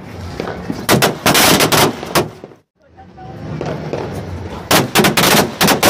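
Firecrackers going off on the ground in rapid runs of sharp cracks, one run about a second in and another near the end, with a short break between.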